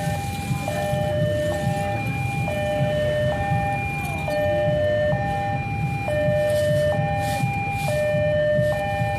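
Railroad level-crossing warning alarm sounding an electronic two-tone signal, a higher and a lower note alternating about every second, over a low rumble of motor vehicle engines.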